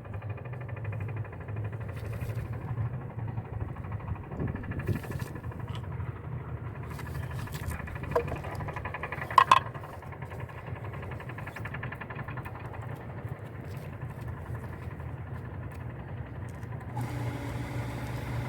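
A steady low mechanical hum like an idling engine, with a few scattered clicks and one sharp ringing clink about halfway through. Near the end a second steady tone and a hiss join the hum.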